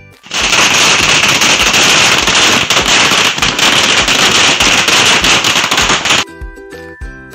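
Ground firework fountain hissing loudly with dense crackling as it sprays sparks, for about six seconds, then cutting off abruptly. Background music plays briefly at the start and returns near the end.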